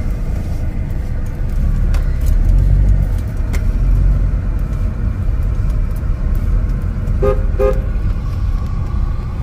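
Steady low rumble of engine and road noise inside a moving car, with two short beeps of a car horn about seven seconds in.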